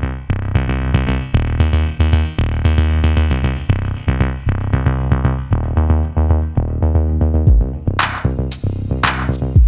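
Electronic intro music: synthesizer chords over a drum-machine beat, with brighter cymbal-like hits joining about three-quarters of the way through.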